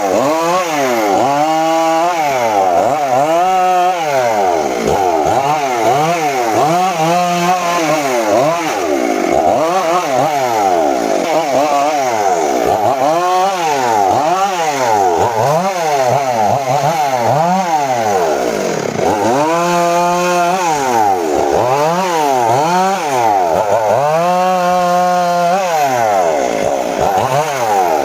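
Homemade table circular saw cutting teak. The blade's pitch dips as it bites into the wood and climbs back as it frees, over and over, about every one to two seconds.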